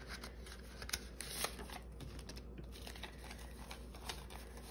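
Paper banknotes rustling and flicking against each other as they are handled by hand: a soft run of small, irregular crisp ticks.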